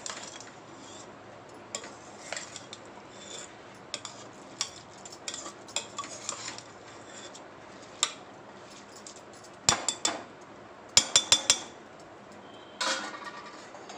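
Perforated steel spoon stirring rice in a pressure cooker: soft scraping with scattered clinks of metal on metal. Sharper clinks come in the second half, including about four in quick succession.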